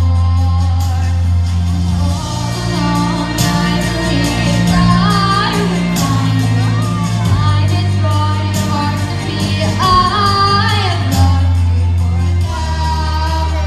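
A girl singing solo into a handheld microphone over a backing track, her melody bending and holding long notes above steady bass notes, amplified in a large hall.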